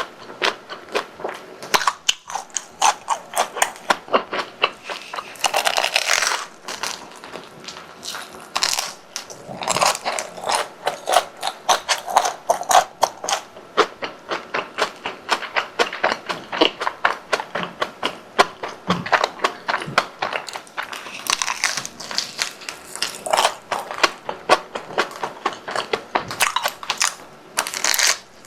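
Close-up crunching and chewing of crispy deep-fried croquette bread: a dense run of rapid crisp crackles from the fried crust, with several louder bouts of crunching spread through.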